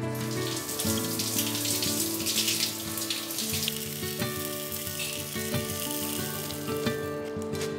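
Breaded steaks sizzling as they fry in a non-stick frying pan, the sizzle strongest in the first half, over background music.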